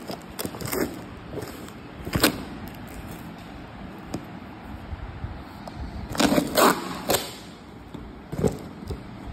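Cardboard boxes handled and turned over: scattered knocks and scrapes of cardboard, with a cluster of louder handling noises about six to seven seconds in.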